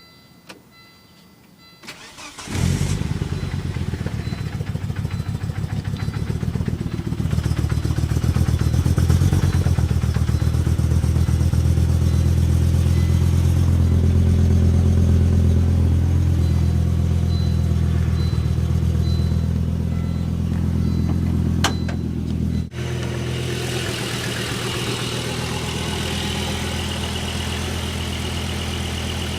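A few faint chime tones, then a Volvo S70 T5's turbocharged inline five-cylinder cranks briefly and fires about two seconds in. It runs at a raised cold-start idle, louder from about seven seconds in, then drops abruptly to a lower idle near the end. This is the cold-start misfire condition the video is about.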